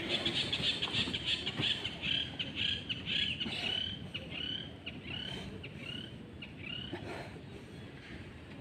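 A bird calling: a fast run of sharp notes that slows into a string of separate hooked notes, about two a second, stopping about seven seconds in.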